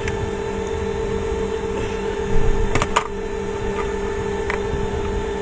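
Steady mechanical hum with a few sharp clicks and taps about three seconds in, from small parts of a steam iron being handled during the thermal fuse repair.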